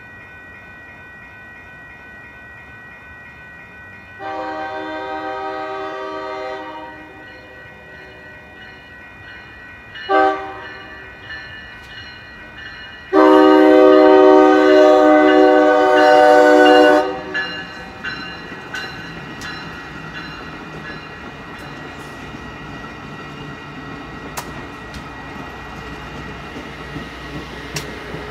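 Passenger train horn blowing a long blast, a short one and then a longer, loudest blast, over the steady ringing of the crossing's warning bell. Then the rumble of the bilevel passenger train arriving and passing the crossing, with clicking from the wheels on the rails.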